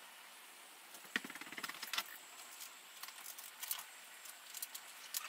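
Irregular groups of sharp, light metallic clicks and a brief rattle, starting about a second in and recurring every second or so.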